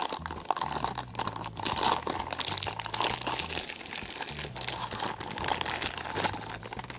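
Packaging crinkling and crackling in irregular bursts as toy picnic cups are handled and taken out of their wrapping.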